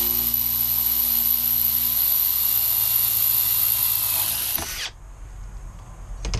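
Makita cordless drill boring a quarter-inch hole through plain scrap metal, running steadily with a high whine until it stops suddenly about three-quarters of the way through, once the hole is through. A couple of sharp clicks near the end.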